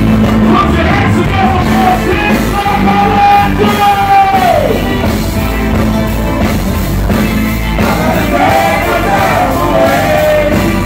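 Live reggae band playing, with electric guitar, keyboards, drums and bass under a singer's voice. The singer holds one long note that falls away about halfway through, then sings again near the end.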